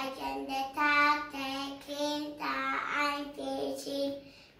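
Young child singing a tune in a series of short held notes.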